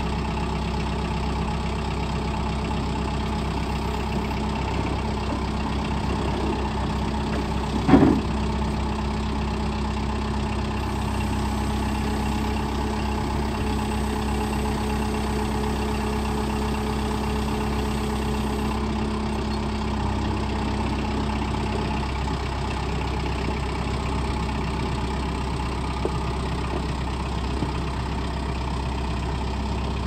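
Kubota tractor's diesel engine running steadily at idle while its front loader works. One loud clunk comes about eight seconds in.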